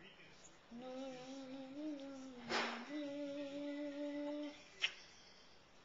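An adult humming a slow tune to a baby in two long phrases of held, gently stepping notes. A short rush of noise comes between the phrases, and a sharp click follows near the end.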